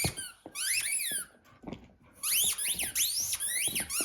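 Squeaker in a plush chicken dog toy squealing over and over as a dog chews it: a short bout about half a second in, then a longer run of squeaks from about two seconds on.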